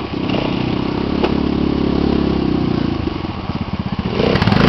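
Engine of a small off-road vehicle running steadily at moderate revs. A little past three seconds in it drops to a slow, pulsing idle. Near the end it gets louder as the vehicle comes up close.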